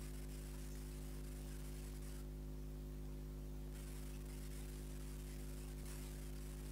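Steady low electrical hum with faint hiss: room tone with no distinct events. The hiss thins out briefly about two seconds in.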